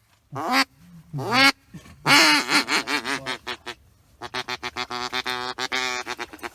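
A duck call blown close by, giving mallard-style quacks: two single quacks, then a run of falling quacks, then a fast chatter of short notes for about two seconds.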